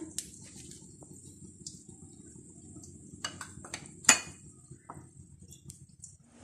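Metal spoon clinking against ceramic bowls and a plate while minced-meat filling is scooped into a hollowed puff: a few scattered light clicks, the sharpest about four seconds in.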